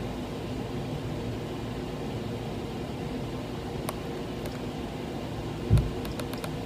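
Steady low room hum with a few faint clicks from buttons being pressed on a feeding pump's keypad as its dose setting is stepped down, and a soft low thump near the end.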